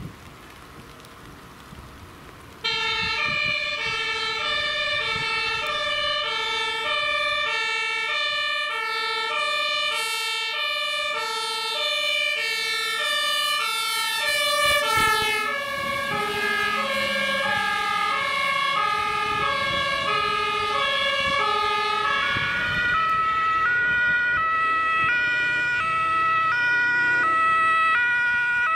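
Emergency vehicle's two-tone siren (German Martinshorn) switching on suddenly a few seconds in and alternating high and low about once a second. About halfway through its pitch drops as the vehicle passes, and near the end a second siren overlaps it.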